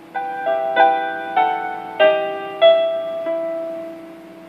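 Piano music playing through the 1946 Sonora tube radio's speaker: about seven struck notes or chords, each ringing and fading before the next.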